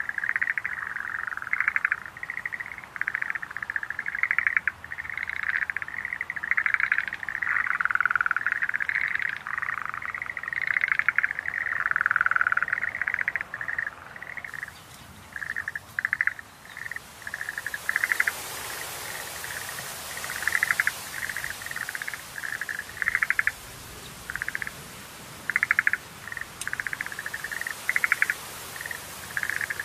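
Schlegel's green tree frogs calling: short pulsed, trilling notes from several frogs, overlapping thickly for the first half, then sparser calls with pauses between them. A steady high hiss comes in about halfway through.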